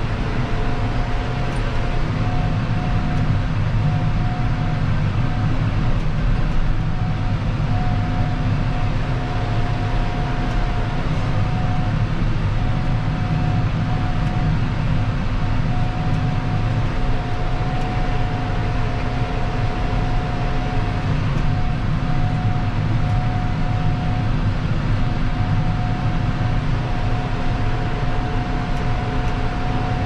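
John Deere 6155R tractor's six-cylinder diesel engine running steadily under load while pulling a reversible plough, heard from inside the cab. A thin, steady high whine sits over the engine's low rumble.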